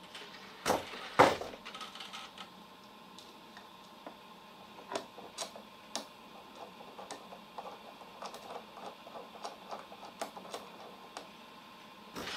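Two sharp knocks about a second in, then irregular clicking from a hand screwdriver driving screws into the wooden side panel of a toolbox.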